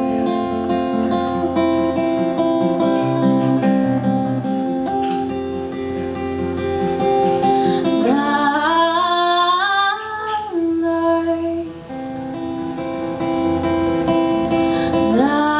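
A woman singing to her own acoustic guitar: the guitar plays alone at first, then about halfway through her voice slides up into a held line, and she comes in singing again near the end.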